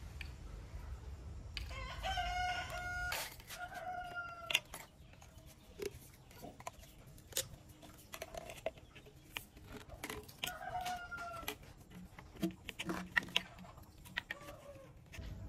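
A rooster crowing, in a long call about two seconds in and a shorter one around ten seconds in. Between them come sharp clicks and knocks of plastic PVC pipes and a tee fitting being handled and pushed together on a tile floor. The loudest clicks fall about four and a half seconds and thirteen seconds in.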